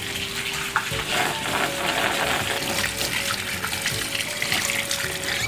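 Tap water running in a steady stream, rinsing food: tapioca pearls in a steel colander, then a halved pumpkin held under the flow.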